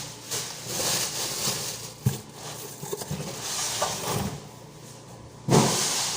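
Rustling and knocking of vegetables and their packaging being handled, with a sharp knock about two seconds in and a louder rustling thud near the end.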